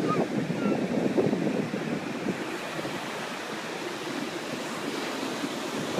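Ocean surf rushing on a beach, with wind buffeting the microphone; a little louder in the first two seconds, then easing.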